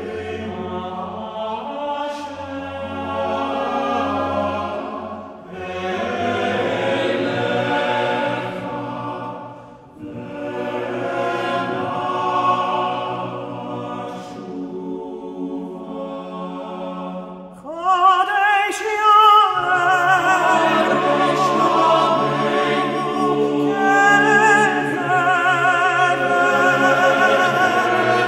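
Men's choir singing a Hebrew liturgical setting a cappella in sustained chords, phrase by phrase with short breaks between. About eighteen seconds in, a cantor's solo voice enters over the choir, louder and with a wide vibrato.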